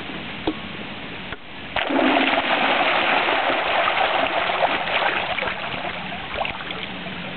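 Water churning and splashing at the surface, stirred by the homemade ROV's vertical thruster as it drives the vehicle down from the surface. It starts suddenly about two seconds in and dies away over the last couple of seconds.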